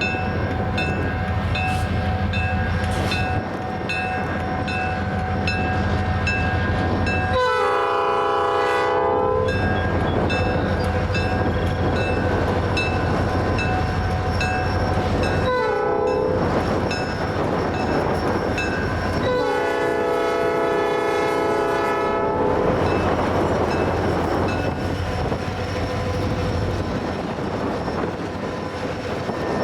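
Freight train diesel locomotives running, with the air horn sounding a crossing signal: a long blast, a short one, then another long one. A bell rings about twice a second through the first part.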